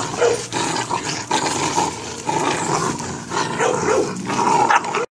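Presa Canario puppies growling and barking in play as they tug and wrestle over a rope. The sound cuts off suddenly near the end.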